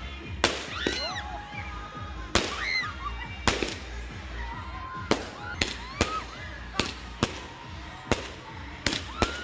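Consumer aerial fireworks going off close by: about a dozen sharp bangs at irregular intervals, some in quick pairs.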